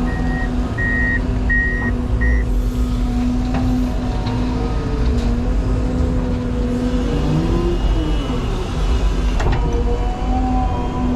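CAT 323 excavator's diesel engine running steadily under load while the hydraulics work, with a rising whine about seven seconds in. A backup alarm beeps three times in the first couple of seconds.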